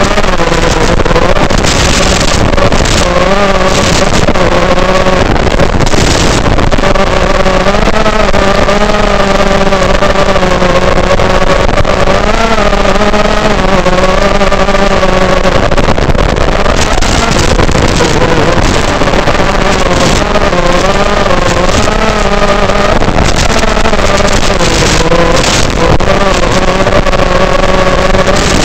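Realacc X210 racing quadcopter's brushless motors on a 4S battery, whining steadily, the pitch rising and falling as the throttle changes, with short bursts of rushing air noise at times.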